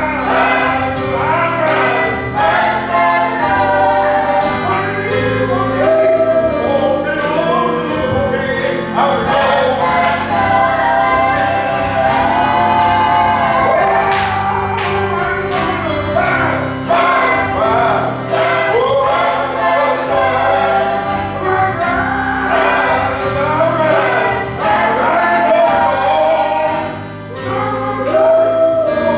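Church choir singing a gospel song with instrumental accompaniment.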